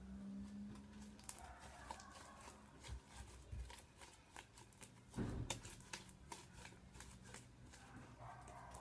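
White-glue slime being kneaded by hand, making many small sticky clicks and pops, with a louder thump about five seconds in.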